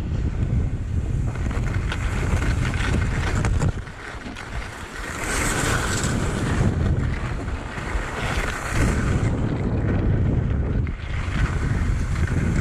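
Wind rumbling on the microphone of a skier's camera during a downhill run, with the hiss and scrape of skis on hard, wind-packed snow. The wind rumble drops away for a couple of seconds about four seconds in, then comes back.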